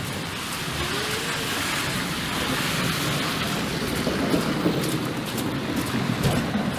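Wet street noise: car tyres hissing on a rain-soaked, slushy road, swelling about halfway through as traffic passes. An uneven low rumble of wind buffeting the microphone builds in the second half.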